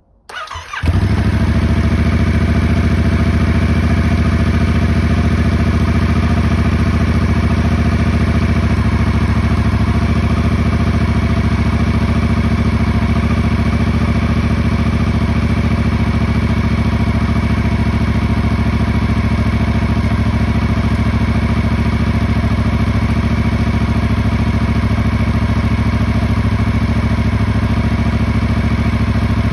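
Yamaha crossplane parallel-twin motorcycle engine cold-started after winter storage: a brief moment of cranking, it catches within about a second, then runs at a steady idle.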